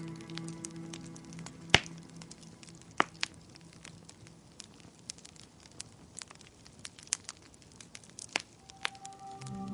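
Wood fire crackling, with scattered sharp pops, the loudest about two seconds in. Soft music fades out at the start and comes back in near the end.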